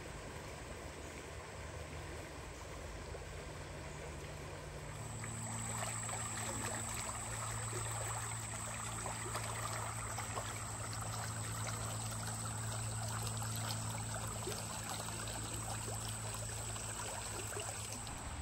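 Water running in a stream, louder from about five seconds in. A steady low hum and a thin high whine join it at the same moment and stop just before the end.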